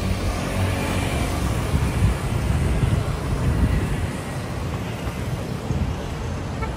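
Steady city street traffic noise: the continuous rumble of passing cars and motorbikes.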